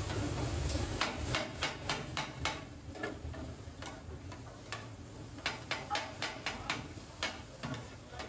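Metal griddle scrapers chopping and tapping chicken on a steel flat-top griddle: a run of sharp clicks, several a second, in clusters.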